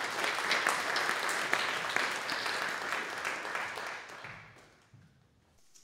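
Audience applauding a speaker's welcome, with steady clapping that fades away about four seconds in.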